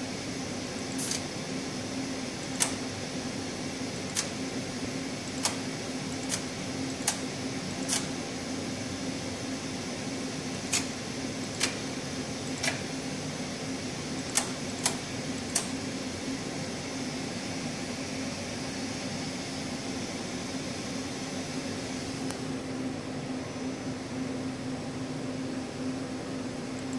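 Repaired tape feeders on an SM-series pick-and-place machine indexing under a function test: about a dozen sharp, irregularly spaced clicks, roughly one every second or so, stopping about fifteen seconds in. Under them runs a steady machine hum with a single low pitch.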